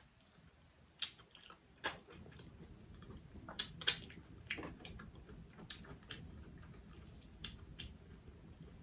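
Someone eating boiled crawfish: scattered sharp cracks and wet smacks of crawfish shells being broken, sucked and chewed, over a faint low hum.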